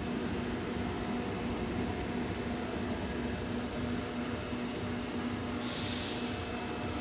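Steady hum and fan noise from the powered-up electrical cabinet of a Daewoo Mynx 500 vertical machining center, with a faint steady tone underneath. A short hiss cuts in briefly about five and a half seconds in.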